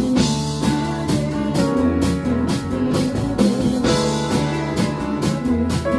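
Live band playing: guitar over a drum kit keeping a steady beat of about two strokes a second.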